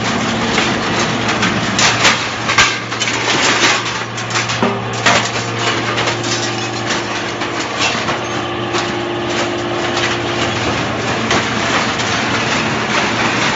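Y81F-4000 hydraulic scrap metal baler at work: the hydraulic power unit hums steadily under loud clanks and knocks of metal scrap, which are thickest in the first five seconds, then give way to a steadier run with a held whine in the middle.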